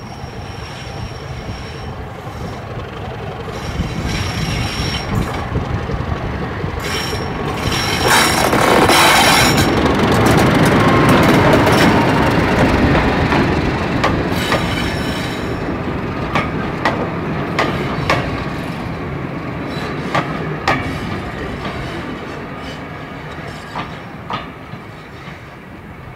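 Class 31 diesel locomotive's English Electric V12 engine working as it approaches and passes hauling coaches. It is loudest about eight to thirteen seconds in, then fades as the train draws away, with scattered sharp clicks from the wheels on the track.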